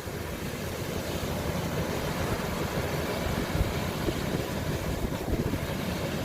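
Kubota combine harvester running steadily while cutting rice.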